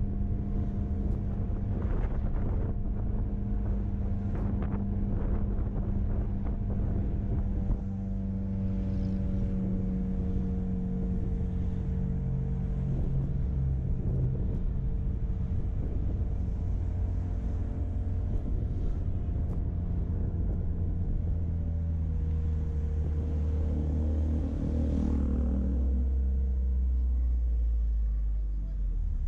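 Vehicle driving on a road: engine running steadily under a low rumble of road noise, its note shifting about twenty-four seconds in.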